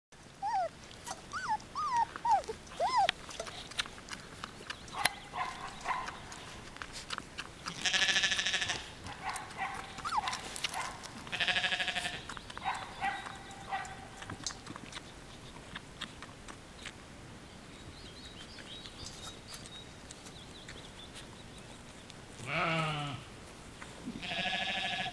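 Young Samoyed puppies, about three weeks old, whining and squealing in many short, high cries, with longer, louder wailing cries about eight and twelve seconds in and twice near the end, one of them falling in pitch.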